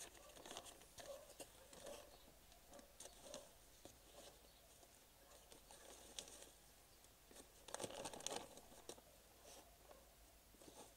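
Soft scraping and rustling of potting soil being scooped with a plastic trowel into a black plastic planting bag, the thin plastic crinkling as it is handled; a louder burst of rustling about eight seconds in.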